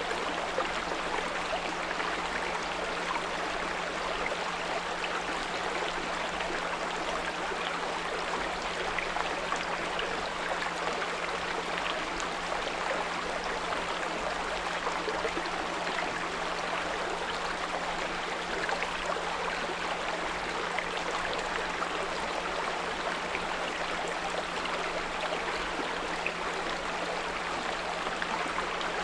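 Small brook running and babbling steadily, with a low steady 174 Hz pure tone held underneath.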